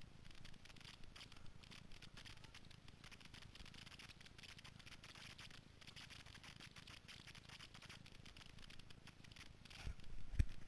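Faint crackling and rustling handling noise picked up by a helmet-mounted GoPro in its housing, with a few louder knocks near the end.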